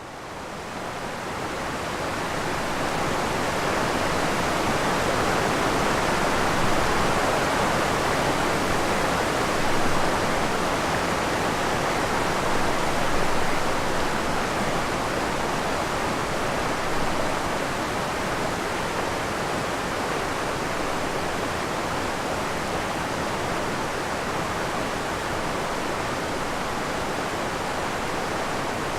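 Waterfall pouring: a steady rushing of falling water that fades in over the first few seconds and then holds even.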